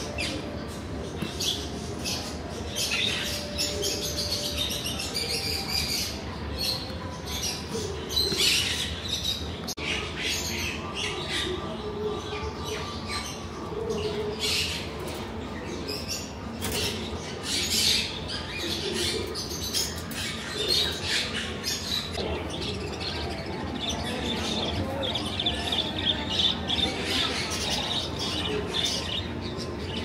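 Many parrots squawking and chirping at once. Sharp, overlapping calls come one after another with no let-up.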